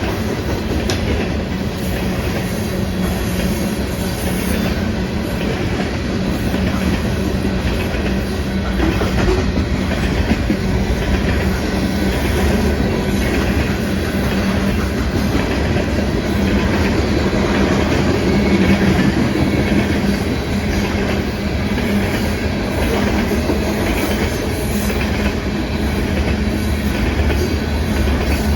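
Union Pacific coal train's cars rolling steadily past, with continuous wheel-on-rail noise and the clickety-clack of wheels over rail joints.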